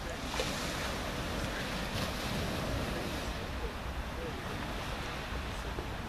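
Small sea waves breaking and washing up a pebble beach, surging about half a second in and again around two seconds in, with a low wind rumble on the microphone.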